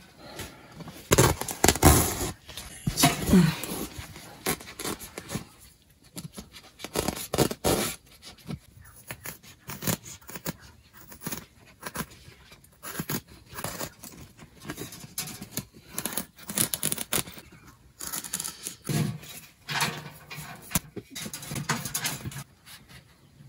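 A blade cutting a notch into wood: an irregular series of sharp strokes and scrapes, the heaviest few near the start.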